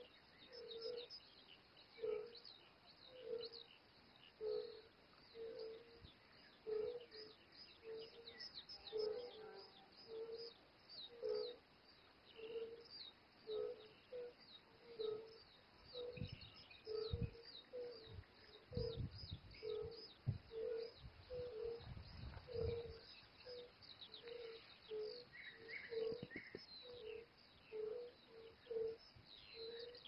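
A chorus of European fire-bellied toads calling from a pond: short, low notes repeating steadily, about one and a half a second. Small birds chirp high above them throughout, and wind buffets the microphone a little after the middle.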